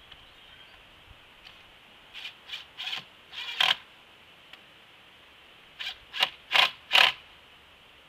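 Cordless drill driving a screw into a wooden porch railing in short trigger bursts: two runs of about four quick bursts each, a few seconds apart, the last burst of each run the loudest.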